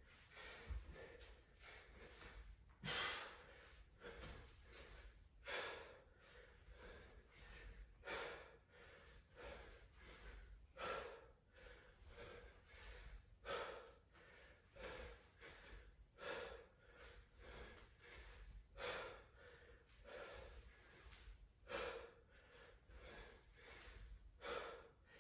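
A man breathing hard during a set of alternating dumbbell snatches, with a sharp, forceful exhale about every two and a half seconds and quieter breaths between.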